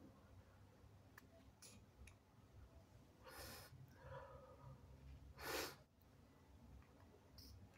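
Two short, noisy breaths, about three and a half and five and a half seconds in, the second louder and sharper, over near silence.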